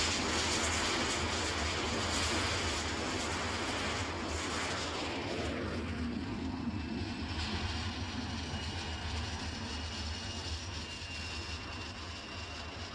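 Jet fighter's engine heard from the aircraft, a loud rushing noise that dies down about five seconds in to a quieter rush with a thin, steady high whine.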